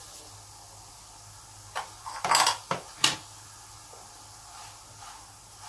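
Kitchenware knocking and clattering against a cooking pan: a few sharp knocks bunched between about two and three seconds in, with a faint one a second later.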